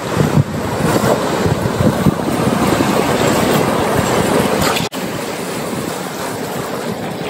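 Steady rushing outdoor noise of wind buffeting the microphone over a wash of water. It cuts out for an instant about five seconds in.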